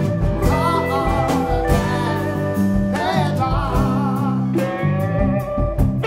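Live band playing a song: guitars with bass over drums, with frequent cymbal and drum hits and a wavering high melody line about a second in and again about three seconds in.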